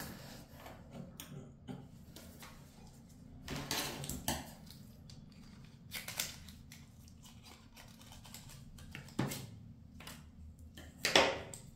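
Handling of a phone and its packaging: scattered rustles, scrapes and light knocks, a few seconds apart, over a low steady hum. The loudest scrape comes near the end.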